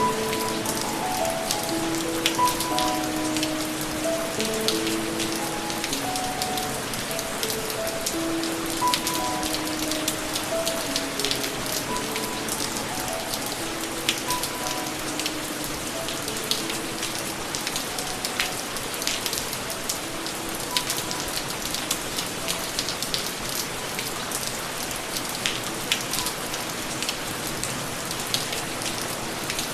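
Steady rain falling, with a constant hiss and many individual drops ticking. A soft, slow melody of held notes plays over it, thinning out and fading in the second half.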